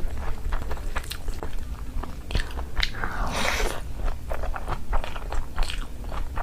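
Close-miked eating sounds: a person biting and chewing food, with many short mouth clicks and a louder, longer noise about three seconds in.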